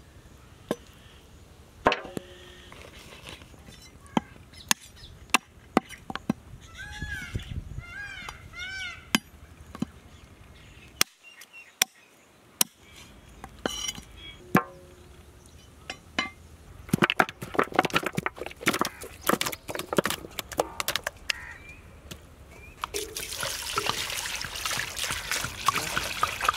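A cleaver chopping raw mutton shank bones on a wooden chopping block, in sharp single chops a second or two apart. Near the end, water is poured in a steady stream over the cut pieces in a large metal pot.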